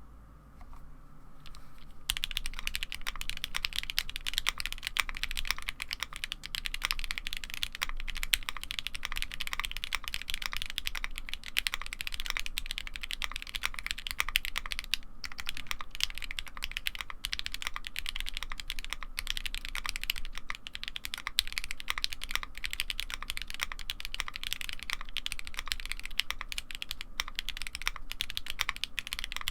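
Typing on a Ginkgo65 custom mechanical keyboard with lubed and filmed Gateron CJ linear switches, a polycarbonate plate and double-shot ABS keycaps. Fast, continuous keystrokes start about two seconds in and keep up without a break.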